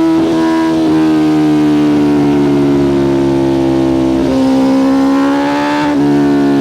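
2024 BMW S1000RR's inline-four engine running through a full titanium Spark Grid-O exhaust, held at high revs. The pitch sags slowly for about four seconds, climbs again, then steps down sharply near the end.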